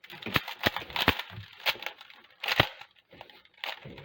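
Rubik's cube being turned fast: its plastic layers click and scrape in quick, irregular turns, very loud.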